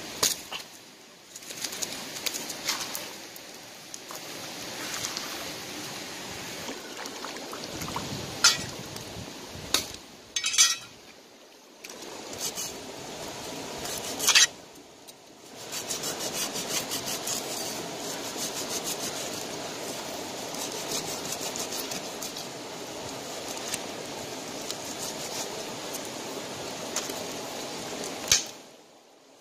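A knife scraping and cutting a fish on a stone slab: sharp knocks of the blade against the rock several times, and a steady, rapid rasp of scraping through the second half. Running water sounds underneath.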